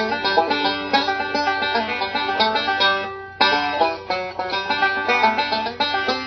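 A brand-new resonator banjo picked solo in fast bluegrass rolls of quick, bright notes. About three seconds in the notes die away for a moment, then the picking starts again hard.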